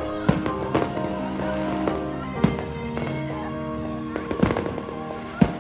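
Fireworks going off in a string of sharp bangs, the loudest near the end, over music with long held notes.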